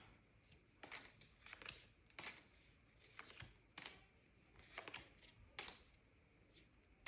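Faint, irregular soft clicks and rustles of Pokémon trading cards being flipped through by hand.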